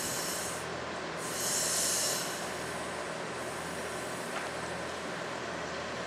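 Metre-gauge train with a MOB GDe 4/4 electric locomotive, with a steady low hum under two hisses of compressed air from its brake system in the first two seconds; the second hiss is longer and louder.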